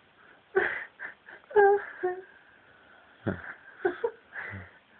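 A person laughing breathlessly in short wheezing bursts, unable to stop.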